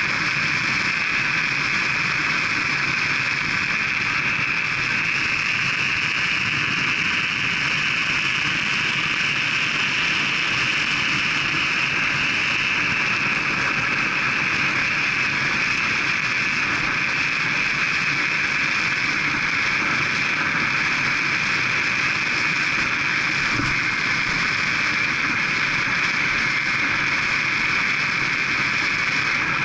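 Steady rush of wind on the microphone with tyre hum from a bicycle ridden at about 30 mph. The hiss rises in pitch about ten seconds in as the bike speeds up on a descent, then settles back.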